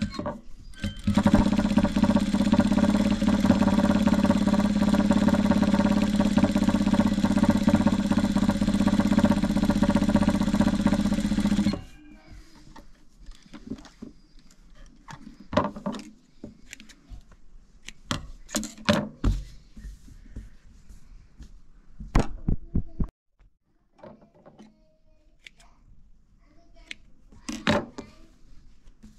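Industrial sewing machine stitching at a steady high speed for about ten seconds, then stopping abruptly. After it stops there are scattered light clicks and knocks.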